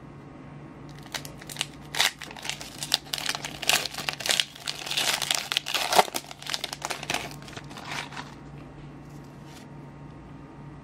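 Foil wrapper of a Pokémon TCG Guardians Rising booster pack being torn open and crinkled by hand: a dense string of sharp crackles that stops about eight seconds in.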